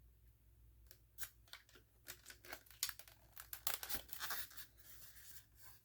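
Packaging rustled and pulled open as a smoke alarm is taken out of its box. Quiet for about a second, then a quick run of short, sharp rustles and scrapes, thickest around the middle.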